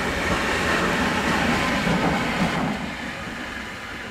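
Siemens Vectron electric locomotive running light past at speed: a wash of wheel-and-rail noise that builds to its loudest about two seconds in, then falls away after about three seconds as it recedes.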